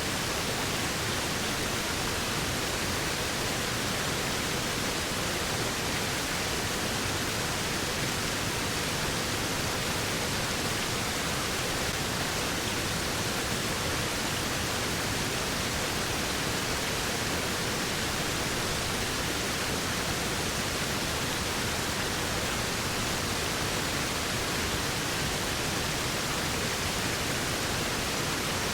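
Waterfall: a steady, unbroken rush of falling water, even and unchanging throughout.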